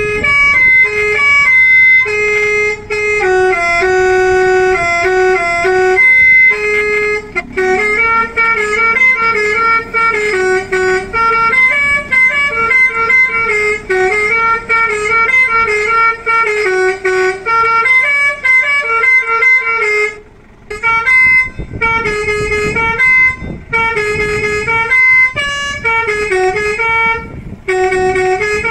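Electric basuri melody horn (a 500-watt unit on a Mitsubishi L300) playing a loud tune of short stepping horn notes, with a brief pause about two-thirds of the way through before the tune carries on.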